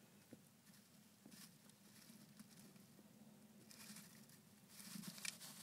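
Near silence with faint, scattered rustling and scratching from a gerbil rummaging in wood-shaving and hay bedding, a little louder near the end.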